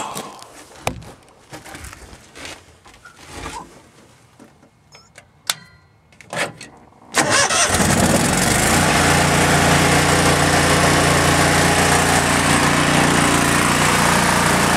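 A homemade air raid siren's motor starts with a sudden loud burst about seven seconds in and then runs steadily at full noise. A few scattered clicks and knocks come before it.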